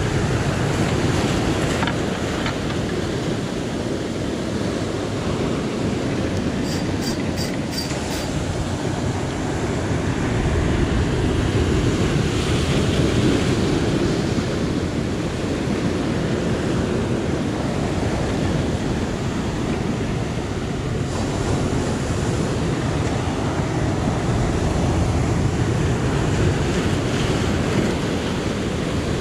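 Sea surf washing against the shore, a steady rushing that swells and eases, with wind buffeting the microphone. A quick run of faint high ticks about seven seconds in.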